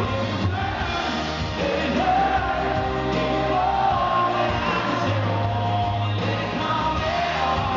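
Live country band music: a man singing lead over strummed acoustic guitar and the band's amplified backing, with sung lines rising and falling over steady low bass notes.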